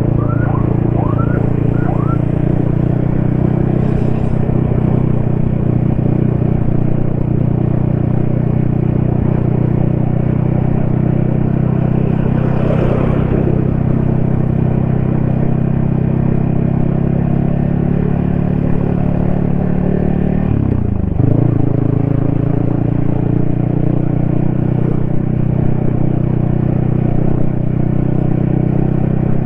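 Yamaha XSR155's single-cylinder engine running steadily under way on the road, heard from the rider's helmet. About 21 seconds in its pitch dips briefly and then comes back up.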